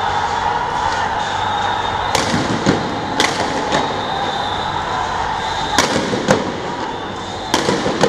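Police gunfire: about eight sharp shots, mostly in quick pairs, over a steady background din with a high drawn-out whine.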